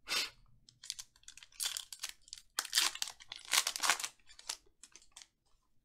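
Foil wrapper of a 2020 Panini Mosaic football card pack crinkling and tearing as it is ripped open by hand, in a run of short, sharp rustles that die away after about five seconds.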